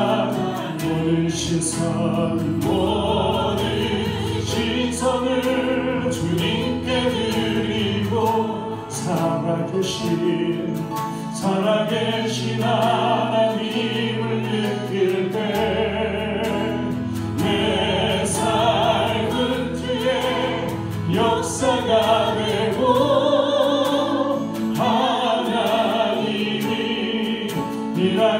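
Choir singing a hymn with instrumental accompaniment, with sustained low bass notes under the voices.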